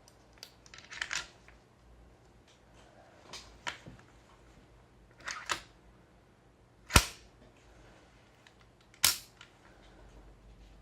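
GHK OTs-14 Groza gas blowback airsoft rifle on green gas firing two single shots about two seconds apart, each a sharp crack with the bolt slamming back. Before the shots come a few quieter mechanical clacks and clicks of the rifle being handled.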